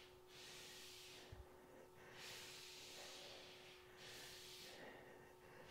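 A woman breathing hard from exertion, faint: about three long breaths, each a soft rush of air lasting over a second.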